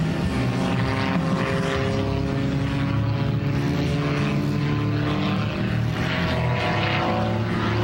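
Pitts S-2S aerobatic biplane's piston engine and propeller droning steadily in a vertical climb, the pitch sinking slowly.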